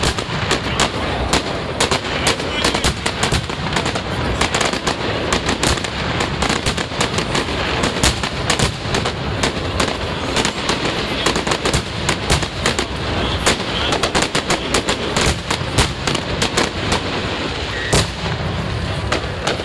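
Fireworks going off in a dense rapid barrage: many sharp bangs and cracks several a second over a continuous crackling rumble, easing a little near the end.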